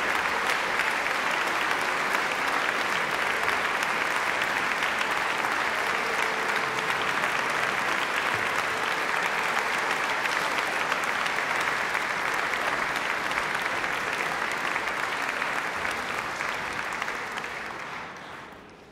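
Concert-hall audience applauding, a dense, steady clapping that fades out near the end.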